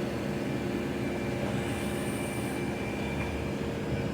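Steady machinery hum with several low steady tones and a faint high whine, and a brief hiss about two seconds in.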